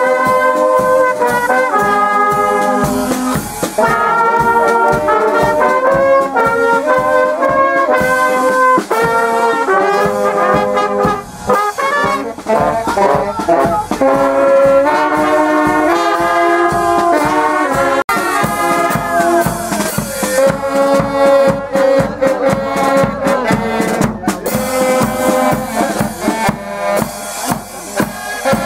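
A brass band playing a lively tune, with trombones and trumpets carrying the melody over percussion.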